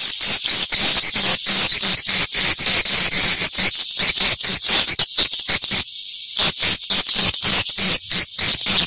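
Edible-nest swiftlet calls: a steady, loud, high twittering made of rapid chirping pulses, several a second.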